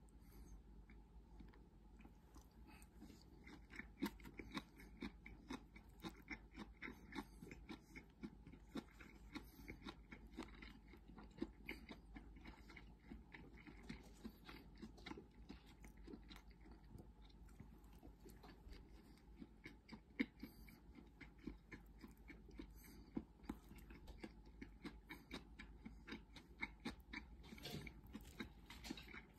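A person chewing mouthfuls of Fukagawa-meshi (clam rice) close to the microphone: soft, quick, moist mouth clicks, a few a second, faint throughout.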